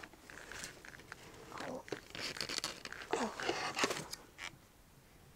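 Hands fitting a ball-jointed doll's head onto its neck: soft rustling and scraping handling noise with a few light clicks.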